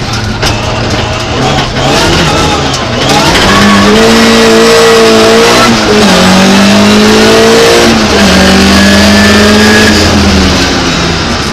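Opel Ascona rally car's engine heard from inside the cabin, pulling hard under full throttle. After a rougher stretch the revs climb steeply and hold high, dropping sharply at upshifts about six and eight seconds in, then easing off near the end.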